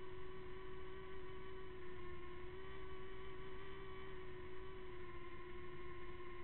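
Hubsan X4 V3 mini quadcopter's small motors and propellers whining steadily in flight, one held pitch that wavers only slightly.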